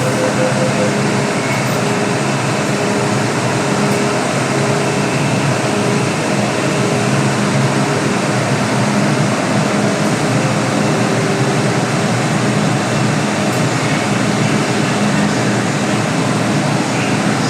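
Steady noise inside an MTR M-train carriage: a constant rumble and air-conditioning hum with a few faint steady tones, no braking or other changes.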